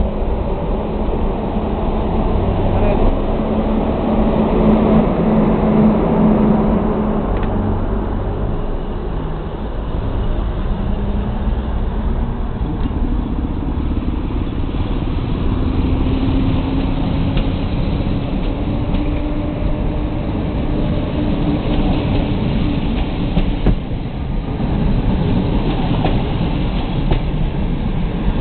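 EU07 electric locomotive hauling a passenger train away from a standstill. A steady hum gives way to a tone that slowly rises in pitch as the train gathers speed, over the continuous rumble of the coaches' wheels on the rails.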